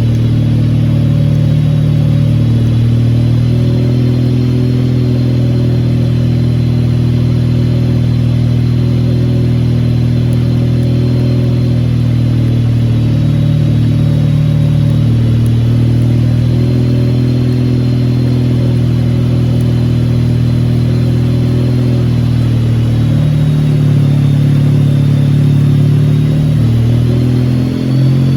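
Wankel rotary engine running steadily. Its note shifts slightly near the end.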